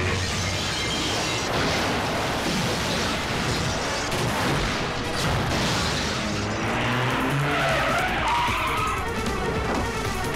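Film action soundtrack: background score mixed with a vehicle's engine and tyres skidding in a chase.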